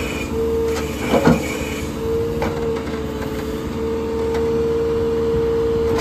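Tractor-mounted backhoe at work: the engine runs steadily under load, with a steady hydraulic whine that comes and goes as the boom and bucket are moved. There is a short louder sound with a falling pitch about a second in.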